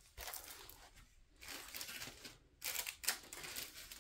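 Plastic packaging crinkling and rustling in several short bursts as items are handled and repacked, with brief pauses about a second in and about two and a half seconds in.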